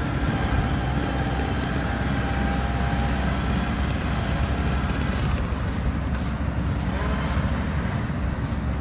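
Yanmar AW82V combine harvester running steadily, its engine note low and even, with light clicking about twice a second over it.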